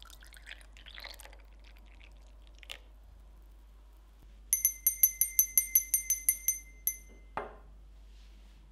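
Coffee poured briefly from a metal pot into a glass cup, then a small ceramic hand bell rung rapidly, about fourteen strikes in two and a half seconds, each with a clear ringing tone. A short knock follows as the bell is set down on the wooden table.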